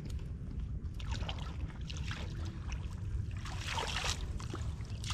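Muddy water sloshing and splashing as hands work through it, in short clusters about a second in and again around four seconds in, over a steady low rumble.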